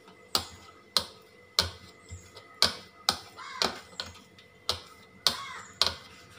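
White plastic rolling pin knocking on a stone worktop as dough is rolled flat, a sharp clack at each stroke, about ten in all, roughly two a second.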